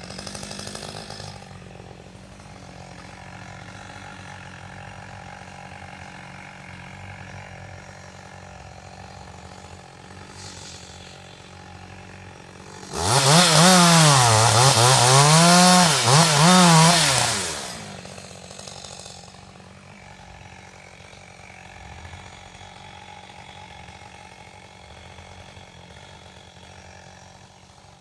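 Two-stroke chainsaw idling, then revved hard for about four and a half seconds near the middle, its pitch rising and falling several times, before dropping back to idle.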